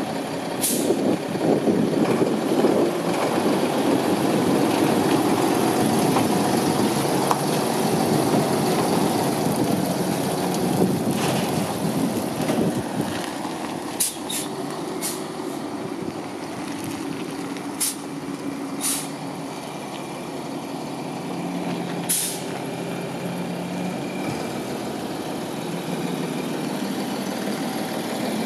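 1994 Volvo WX42 tank truck's diesel engine driving, louder over the first dozen seconds, then settling to a steady idle. Short sharp hisses of air from the air brakes come several times in the second half.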